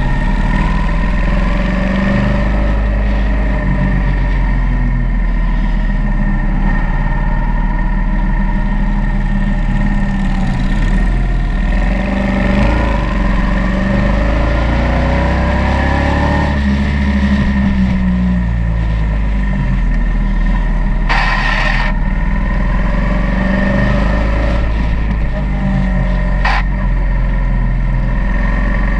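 Motorcycle engine running on the move, its pitch rising and falling as the throttle opens and closes through the bends. A short rush of noise comes about three-quarters of the way through.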